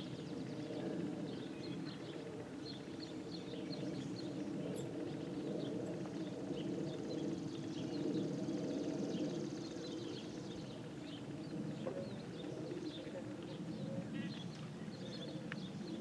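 Outdoor ambience of small birds chirping repeatedly over a steady low rumble, with a horse moving on sand arena footing. A thin high trill joins in about six seconds in and stops near eleven seconds.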